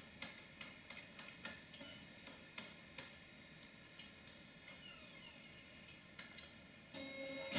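Faint steady hum of a Power Mac G4 running, with irregular light clicks. About halfway, a falling whine as the optical drive spins the disc down before it is ejected.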